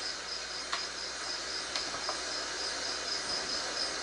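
Steady high-pitched chirping, about three even pulses a second, as of a cricket, over faint room hiss, with a few soft clicks.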